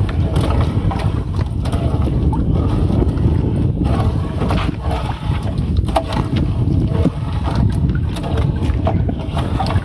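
Steady low rumble aboard a small fishing boat at sea, with wind buffeting the microphone and a few short knocks.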